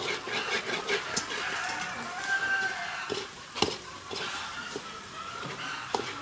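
A metal ladle stirring and scraping shredded fish in a metal wok as it is dry-roasted into fish floss (ruốc cá), with sharp metal clinks against the pan about every two to three seconds.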